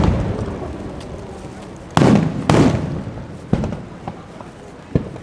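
Aerial fireworks shells bursting close overhead: two loud booms about two seconds in, half a second apart, then a smaller bang and a sharp crack near the end, each trailing off in a rolling echo.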